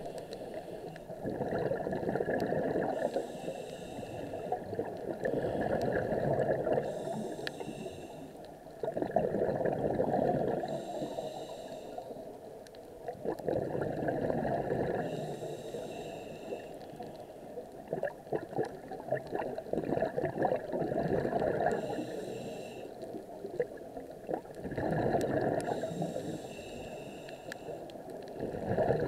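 A scuba diver breathing through a regulator underwater, about six breaths. Each breath has a short hiss on the inhale, then a longer bubbling gurgle of exhaled bubbles that crackles and rises and falls every four to five seconds.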